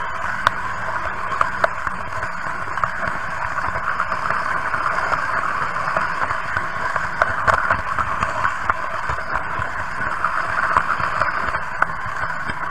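Märklin H0 model train running along metal track, heard from on board: a steady whirring rattle of wheels and drive with a few sharp clicks from the rail joints.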